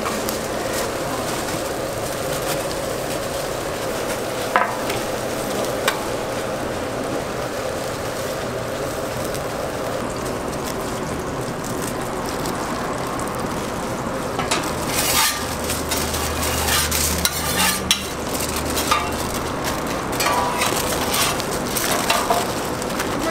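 Food sizzling steadily on a hot griddle, with two sharp taps a few seconds in. From about two-thirds through, aluminium foil crackles and crinkles as it is folded around a burger.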